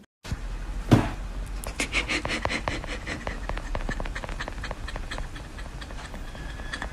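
A husky puppy panting, among many sharp clicks and small knocks, the loudest about a second in.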